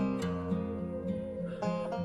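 Background music played on a plucked string instrument: a run of short picked notes, one after another.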